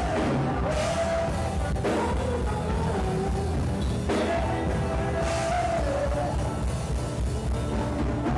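Church worship music: a band playing with a voice singing a wavering melody over a steady bass.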